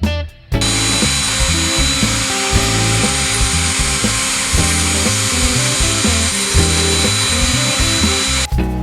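An X-Carve CNC router's spindle cutting into wood: a steady high whine over the noise of the cut, over guitar-driven background music. It starts abruptly about half a second in and cuts off shortly before the end.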